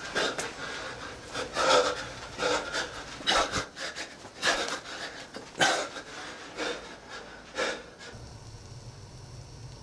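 A man breathing hard, forcing out a sharp breath about once a second as he throws punches while shadowboxing. The breaths stop about eight seconds in, leaving a low steady hum.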